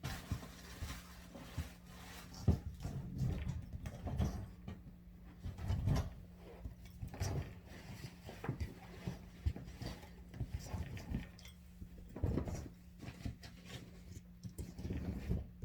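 A pet dog moving about and playing: irregular knocks and rustles, over a faint steady hum.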